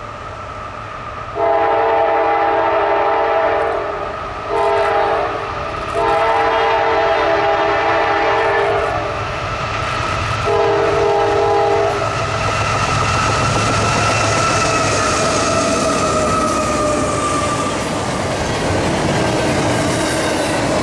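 Freight diesel locomotive's horn sounding four chord blasts (long, short, long, then a shorter one). The locomotive then passes with a slowly falling pitch, and double-stack container cars roll by with a clickety-clack of wheels on the rail joints.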